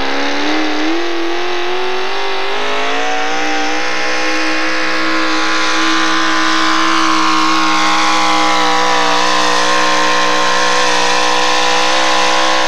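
Modified Chevrolet pulling truck's engine at full throttle, pulling a weight-transfer sled: the revs climb over the first three or four seconds, then hold steady and high.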